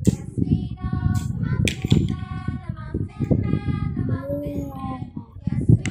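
A child's voice singing a song, over the clatter and knocking of hard plastic toy kitchen pieces and utensils being handled.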